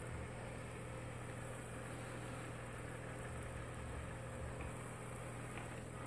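JISIWEI i3 robot vacuum running, its suction fan and brushes making a steady low hum.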